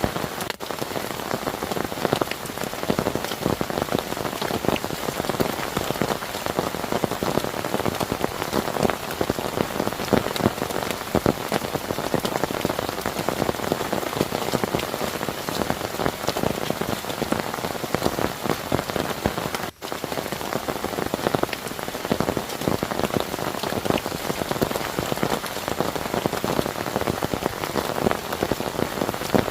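Heavy rain falling steadily: a dense patter of drops hitting a surface, with a split-second break about two-thirds of the way through.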